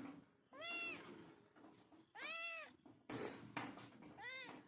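A cat meowing three times, each meow rising then falling in pitch, with a short hissy noise between the second and third meow.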